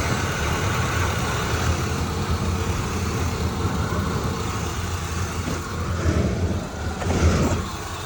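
2003 Ford Expedition's V8 engine idling steadily while still warming up from cold, with no chirp yet; the chirp only appears once the engine reaches operating temperature. A short louder sound comes about seven seconds in.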